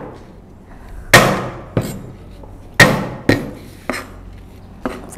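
Flat of a cleaver smashing garlic cloves on a cutting board: two loud whacks about a second and a half apart, with a few lighter knocks between and after.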